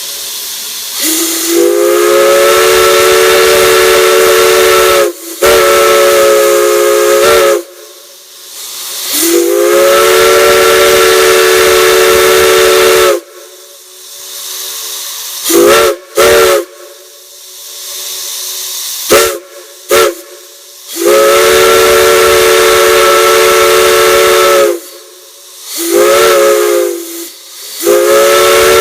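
Multi-chime whistle blown in a series of long blasts and short toots: a chord of several tones that bends up in pitch as each blast opens and drops off at its end, with a hiss between blasts.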